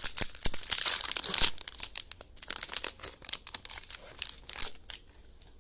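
Plastic wrapper of a Stadium Club baseball card hanger pack crinkling and tearing as it is ripped open, dense crackling heaviest in the first second and a half, dying away about five seconds in.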